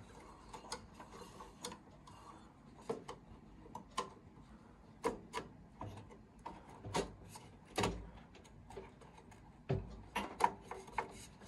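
Handling noise of a DDR4 RAM stick being lined up in a desktop PC's memory slot: irregular plastic clicks, taps and rubbing, with a few duller knocks against the case.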